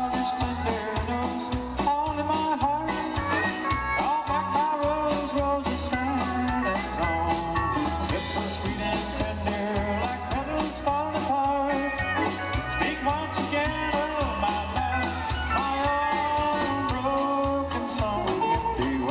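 Live country band playing an instrumental break: a guitar lead with bending notes over electric bass, drums and acoustic guitar.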